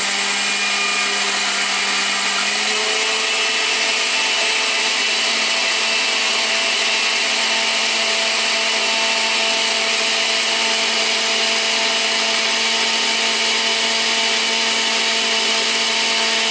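Countertop blender motor running steadily at full speed, its pitch stepping up slightly about three seconds in. The jar is packed full, and the tomatillos stay stuck against the jar walls instead of blending through.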